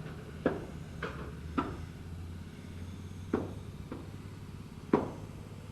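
Hammer blows on wood framing: sharp single knocks, some in quick pairs about half a second apart, with pauses between, over a steady low hum.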